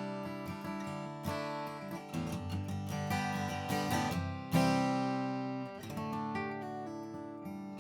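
Furch-built Stanford D5 Pro steel-string acoustic guitar being played: picked notes and chords, with a loud strummed chord about four and a half seconds in that rings out and slowly fades.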